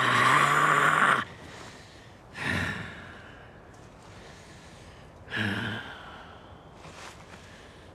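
A wounded man crying out in pain: a long strained cry that breaks off about a second in, then a sharp gasping breath and, a few seconds later, a short groan.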